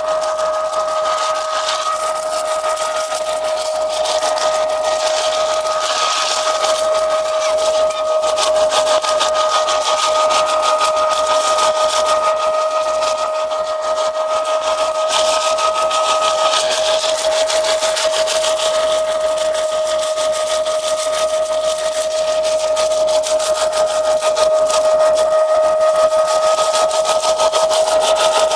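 Hazelnut threshing machine running steadily with a constant high whine, over a dense rattle of hazelnuts pouring out of its outlet pipe onto the pile.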